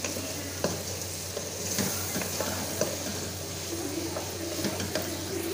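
Small chicken chunks sizzling in shallow oil in a wok as a spatula stirs them, with a few light scrapes and clicks of the spatula against the pan over a steady frying hiss.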